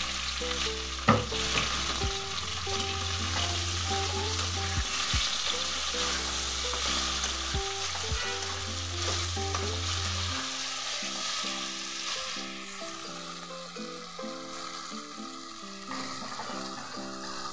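Prawns, potato chunks and diced tomato frying in hot oil in a kadai, sizzling steadily while a metal spatula stirs and scrapes them. The spatula knocks sharply against the pan a few times in the first half.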